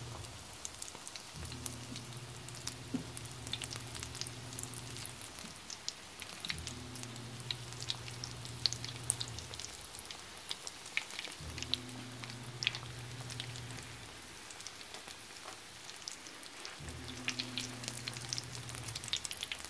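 Breaded mashed-potato croquettes frying in shallow oil in a cast-iron skillet: a steady, dense crackle and sizzle of bubbling oil. A low hum comes and goes in the background about four times.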